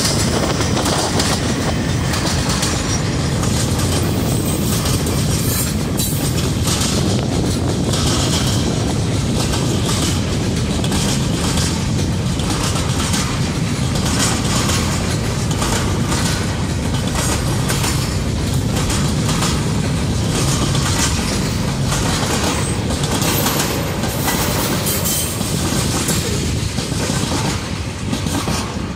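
Freight train's boxcars and tank cars rolling past close by: a steady rumble of steel wheels on rail with repeated clacks as the wheels cross rail joints, starting to fade right at the end.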